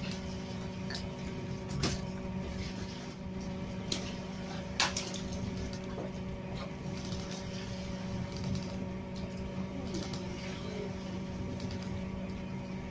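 Steady hum of a fishing boat's running machinery, with a few sharp clicks and knocks about two, four and five seconds in as the gillnet is worked across the deck.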